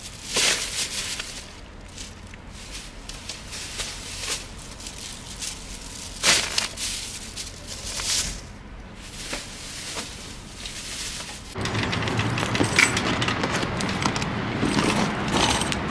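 Plastic grocery bags rustling and crinkling as they are handled, in short bursts a few seconds apart. About three-quarters of the way through, a louder steady noise takes over.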